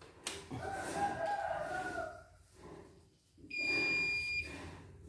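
CNY computerized embroidery machine powering up: a wavering mechanical whir for about two seconds, then a loud, steady electronic beep lasting about a second.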